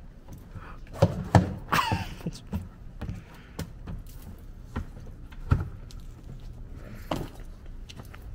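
Shoes thumping on the wooden planks of a small arched wooden structure as a man climbs up, stands on it and jumps down: a string of separate knocks and thuds, the loudest about five and a half seconds in, with a short wavering squeak about two seconds in.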